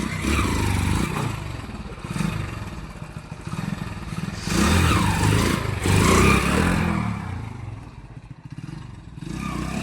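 Motorcycle engine running and revving as the bike is test-ridden on its new tyres, getting louder and quieter several times. It is loudest about five to six and a half seconds in.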